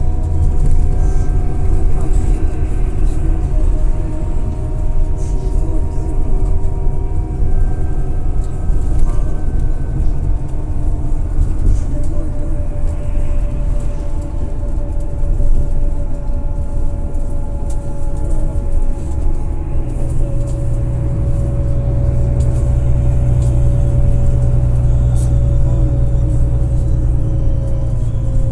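Road noise inside a moving vehicle: a steady low engine and tyre rumble with a faint, slowly shifting whine above it. The low hum grows steadier about two-thirds of the way through.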